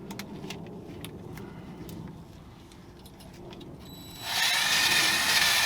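Faint clinks and handling noise, then about four seconds in a handheld power tool such as a drill starts up with a high whine and runs steadily for about two seconds before cutting off sharply.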